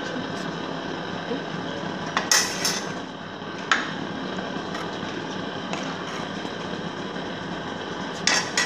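A steel spoon clinking against the side of a curry pot while stirring a thick coconut masala: a few sharp knocks about two to four seconds in and another near the end, over a steady background hiss.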